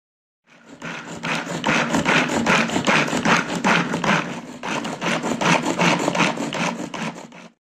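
Green peas being crushed in a hand-operated plastic chopper. The blades churn and rattle the peas round the bowl in quick repeated strokes, about three a second.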